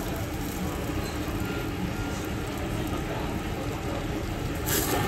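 Steady low rumbling room noise around a tabletop charcoal yakiniku grill, with a short bright hiss near the end as grilled chicken is dipped into the garlic butter bubbling in a foil tray on the grill.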